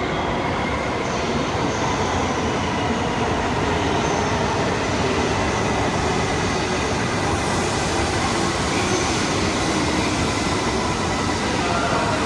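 Shinkansen train pulling in alongside an underground platform: a steady rumble of wheels and running gear with a faint high tone over it, growing a little louder over the first few seconds and then holding steady.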